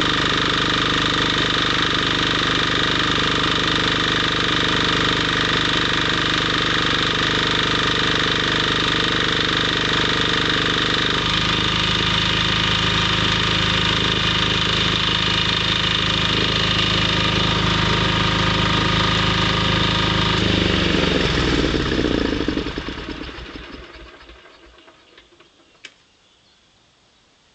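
An engine running steadily, its note shifting slightly about eleven seconds in, then shut off about twenty-one seconds in and winding down with a falling pitch to quiet.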